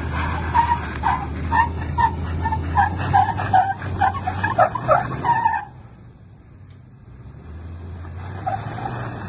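Toyota Tundra's engine pulling under load up steep sandstone while its tyres chirp and squeal in a string of short squeaks, two or three a second, as they slip on the rock and lose traction. About two-thirds of the way through, the engine eases off and the squeaking stops. The engine then pulls again, with one more chirp near the end.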